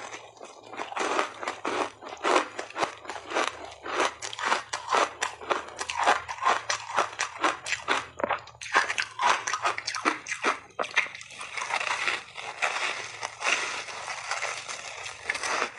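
Coloured layered ice dusted with matcha powder being bitten and chewed close to a clip-on microphone: rapid crisp crunches, several a second, which thicken into a denser continuous crunch in the last few seconds.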